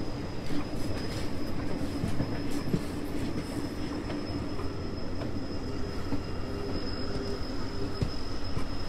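Train running on rails: a steady low rumble with a thin, high, steady whine and occasional faint clicks.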